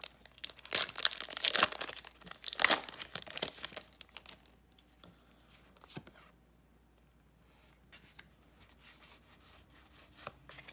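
A foil Pokémon card booster pack being torn open and crinkled, in a dense run of crackling over the first four seconds, then only a few light handling clicks.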